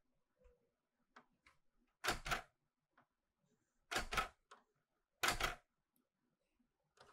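Clover 810S manual typewriter typed on slowly: three separate bursts of two or three quick, sharp key strikes, with a few light clicks between them.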